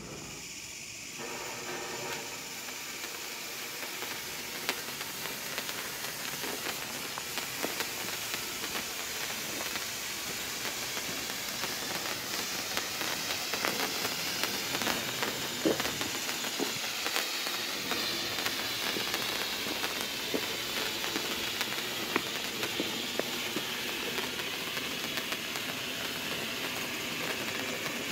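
White bengal flare with titanium sparks burning: a steady hiss with scattered faint crackles, growing slowly louder.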